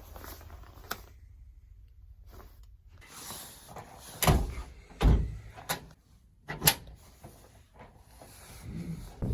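A door being opened and shut: a few sharp knocks and thumps, the loudest about four and five seconds in.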